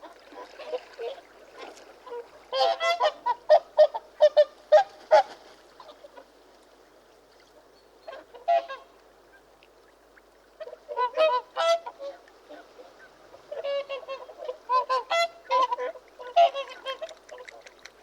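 Swans calling: bouts of short, nasal, pitched calls in quick succession, several a second, in three or four clusters with a single call between them.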